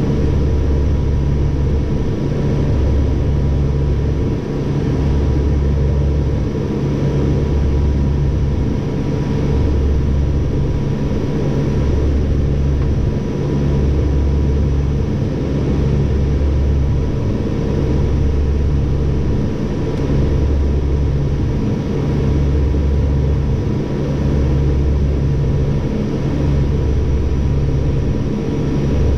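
Flight-deck drone of a de Havilland Canada Dash-8-100's twin turboprop engines and propellers in flight. It is a steady drone with a low throb that swells and fades about every two seconds.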